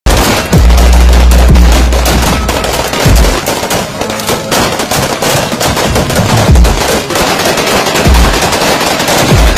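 Rapid strings of gunshots, shots packed closely together in bursts, over music with a heavy bass.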